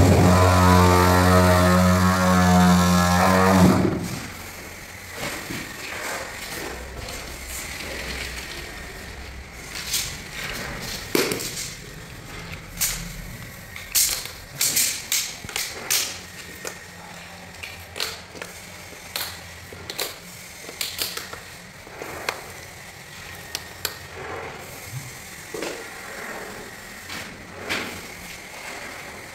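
Handheld cordless tile vibrator pressed onto a large porcelain floor tile, humming steadily and cutting off suddenly about four seconds in. After that come scattered light clicks and knocks as the tile and its plastic leveling clips are handled.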